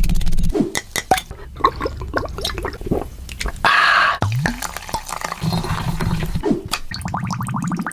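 Wet clicks and squelches of a liquid or gel being handled, with a short hiss about three and a half seconds in.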